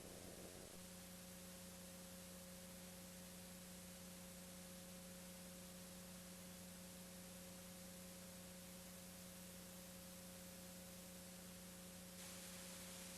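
Near silence: a faint, steady hum over soft hiss, a little louder from about twelve seconds in.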